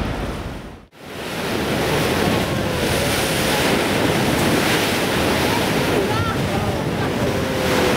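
Wind rushing over the microphone, mixed with the sound of water, on an open boat. The sound drops out briefly just under a second in, then the wind noise comes back.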